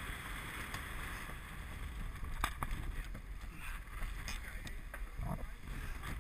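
Rush of wind and water on board a Farr 30 racing yacht heeled over and sailing upwind through chop, with a couple of short sharp clicks partway through.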